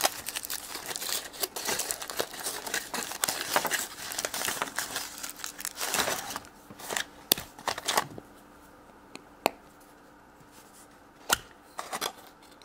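Foil wrapper of a chocolate surprise egg crinkling and tearing as it is peeled off and the egg is broken open. It then goes quieter, with a few sharp clicks near the end as the plastic toy capsule is opened.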